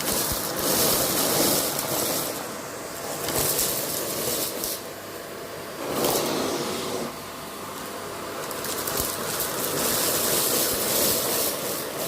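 Vacuum cleaner running, a rushing hiss of suction over a faint motor hum, swelling and dipping every second or two as the tool works over the surface.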